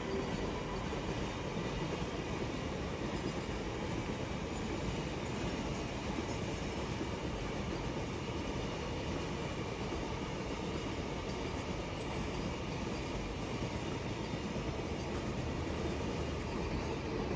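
Double-stack container freight train rolling past: a steady rumble of the wagons' wheels on the rails.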